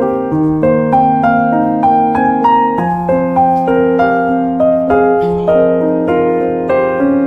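Background piano music: a gentle melody of plucked-sounding notes, about three or four a second, over a slowly changing bass line.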